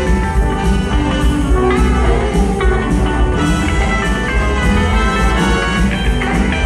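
A live band playing upbeat rock-and-roll dance music led by guitar, loud and steady with a strong bass and beat.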